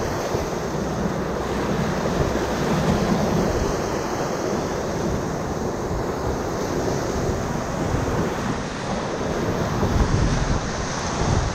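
Whitewater rapid rushing and crashing around a kayak, heard close up from the boat, with water and wind buffeting the microphone. The low rumble swells about ten seconds in as the boat drops into the breaking waves.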